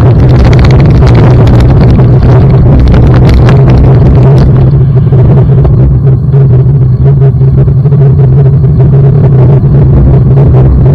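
Loud wind buffeting and road rumble on a bicycle-mounted action camera while riding over a bumpy bridge deck and onto a gravel road. Many sharp rattles and knocks from the rough surface, thickest in the first few seconds and thinning out after that.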